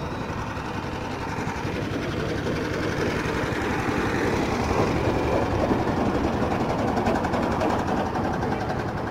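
A small engine running steadily with a rapid pulse, growing louder about halfway through and easing off a little towards the end.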